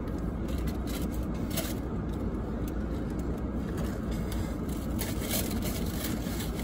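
Steady low hum inside a stationary car's cabin, from the car running, with a few faint clicks and rustles as an iced drink in a plastic cup is handled and sipped through a straw.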